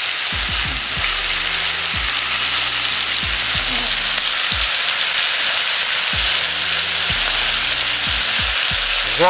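Chicken pieces sizzling steadily in oil on a hot saj, a steel griddle set over a wood fire, as the meat is left to brown and form a crust.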